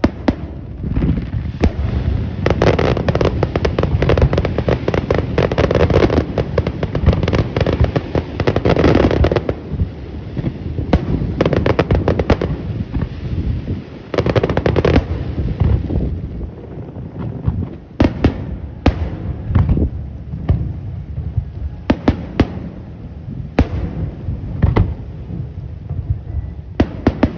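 Aerial fireworks display: a string of sharp bangs and booms over a low rumble, with a dense stretch of rapid crackling about three seconds in that lasts some six seconds, and a shorter crackling flurry about halfway through.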